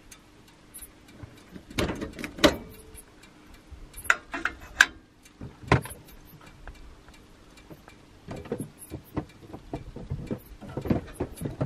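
Scattered metallic clinks and knocks of a kettle and cups being handled at a Coleman camp stove, busier in the last few seconds, over a faint steady hum. The kettle has stopped whistling after coming to the boil.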